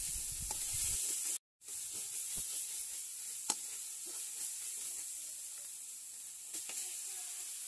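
Red curry paste sizzling in a little oil in an aluminium pot as a spoon stirs and scrapes it: a steady high hiss with light scraping, cut briefly to silence about a second and a half in, and one sharp click of the spoon on the pot partway through.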